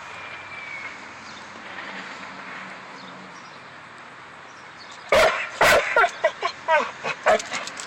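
Faint background hiss for about five seconds. Then a dog barks twice loudly and breaks into a quick run of short yips and whines.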